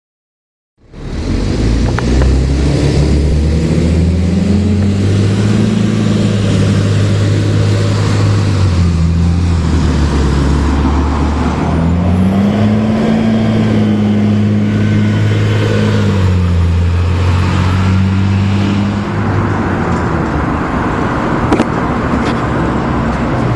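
Cummins ISL diesel engine of a 2005 NABI 40LFW transit bus pulling away and accelerating. The engine note rises and drops several times as the Allison automatic transmission shifts, with a thin high whine through the middle.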